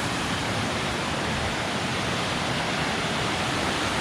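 Ganoga Falls, a tall waterfall of about 94 feet, giving a steady, even rush of falling water.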